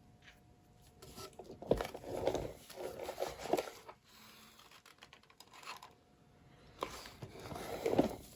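Two spells of scraping and rustling handling noise: a longer one about a second in, and a shorter one near the end.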